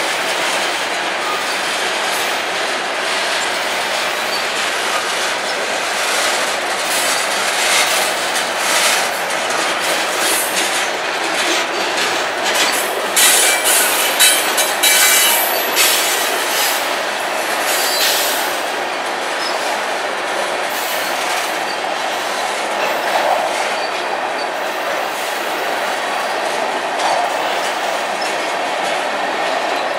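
Freight cars, covered hoppers and tank cars, rolling past slowly under a track-work slow order, with steel wheels clicking and knocking over the rail. The clicks and knocks come thickest and loudest through the middle of the stretch.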